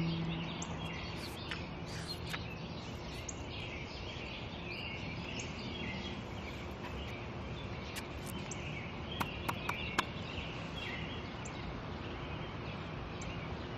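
Garden ambience: birds chirping on and off over a steady background hiss, with a few short clicks near the middle. A low sustained musical tone fades out in the first two seconds.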